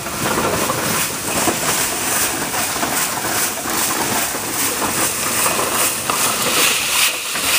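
Homemade tumble sander running, aquarium gravel churning and rattling inside it in a loud, steady, rhythmic noise.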